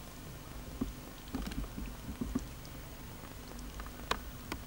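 Cats shifting about, making soft scattered rustles and small clicks, with two sharper clicks near the end, over a faint steady hum.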